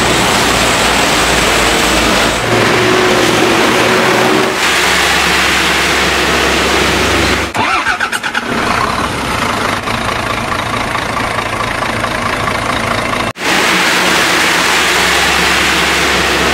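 Heavy diesel trucks passing on a wet road: a steady low engine hum under a broad wash of tyre and rain noise. For several seconds in the middle it gives way to a different, fluttering sound before the traffic noise returns.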